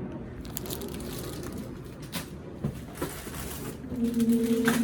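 Plastic model-kit parts and their bags being handled, with light rustling and clicking. Near the end a steady whine is held for under a second, the loudest sound here.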